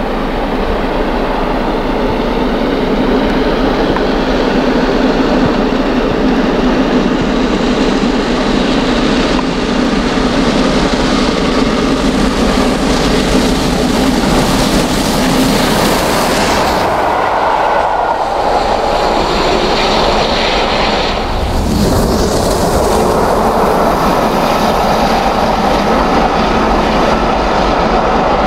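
LNER Peppercorn A1 Pacific steam locomotive 60163 Tornado working under steam as it approaches and passes hauling its coaches. The sound is loud and steady, with wheels clattering on the rails. It changes character as the engine passes close, about 17 to 22 seconds in.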